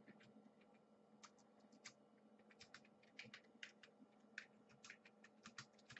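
Faint typing on a computer keyboard: quick, irregular key clicks, a few to several a second, over a low steady hum.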